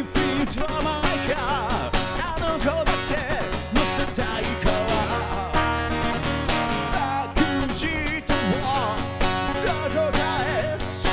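A man singing a Japanese rock song over a strummed guitar, his voice wavering in a lively melody against a steady strummed rhythm.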